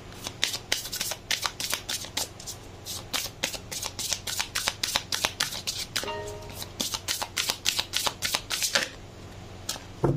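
A deck of oracle cards being shuffled by hand: a quick, even run of papery flicks, about five a second, that stops near the end.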